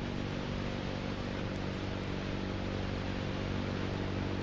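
Steady hiss with a low electrical hum under it, the noise floor of an old film soundtrack, with no distinct sound standing out.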